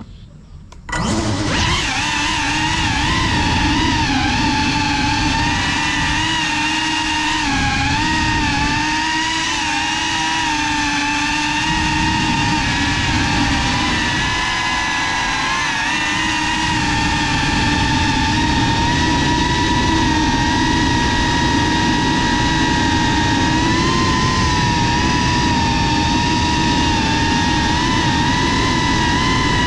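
FPV quadcopter's brushless motors and propellers spinning up abruptly about a second in, then a loud, steady whine that wobbles and rises a little with throttle changes in flight, heard from the camera on board the drone.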